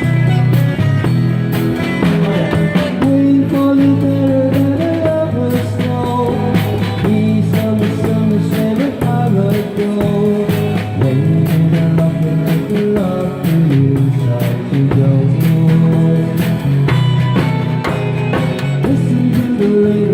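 Live street band playing an oldies pop song with guitar and a steady drum beat, and some singing.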